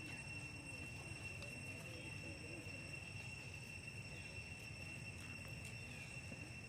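Steady high-pitched drone of insects, one unbroken whine that does not change, over a low background rumble.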